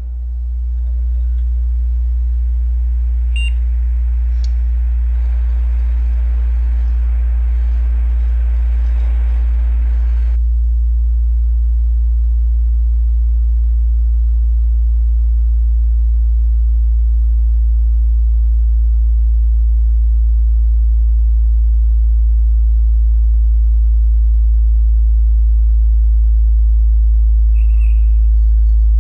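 Deep, steady electrical hum: a single low tone that slowly grows louder.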